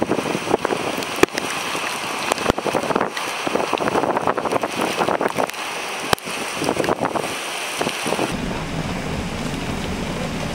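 Hurricane wind and driving rain, with gusts buffeting the microphone and many sharp crackles. About eight seconds in, the sound changes to a steadier, fuller rain hiss.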